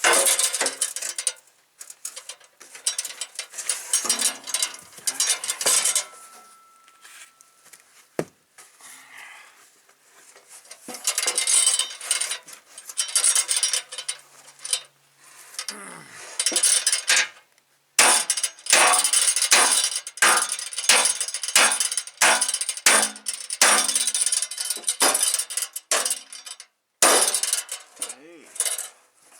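Sledgehammer blows ringing on a polished stainless steel truck fender, beating out a dent so the sheet metal is usable again. Irregular clusters of strikes in the first half, then a steady run of about two strikes a second.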